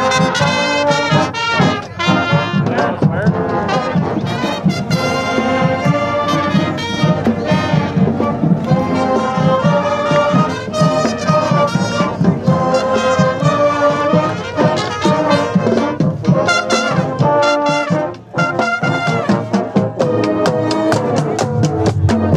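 Marching band playing a tune as it marches past: trumpets, trombones, saxophones and flutes over steady drum beats, with a bass drum struck close by near the end.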